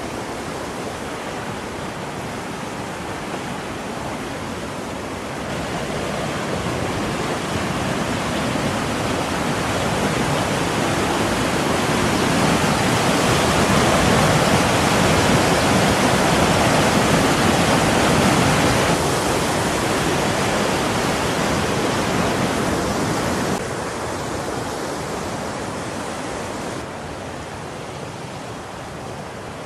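Steady rush of falling water from a waterfall or mountain stream. It swells to its loudest around the middle, then drops back in a few sudden steps.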